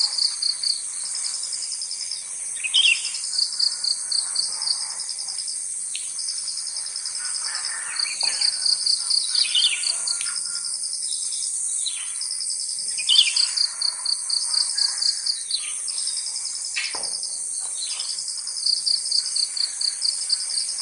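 Sooty-headed bulbul (kutilang) giving short calls now and then, over a steady high hiss of crickets and insects and recurring series of rapid pulsed chirps.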